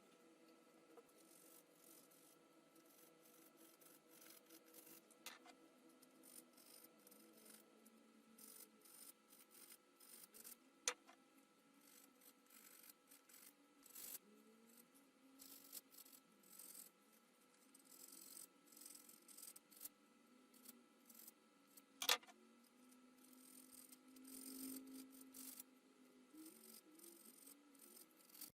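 Faint, intermittent scraping and rubbing of old glue being cleaned off the ends of wooden chair spindles, with two sharp wooden knocks, one about a third of the way in and one about three-quarters through.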